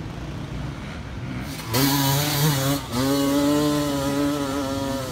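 Enduro dirt bike engine revved hard and held at high revs. It cuts in sharply after a low rumble, dips once briefly, then holds again.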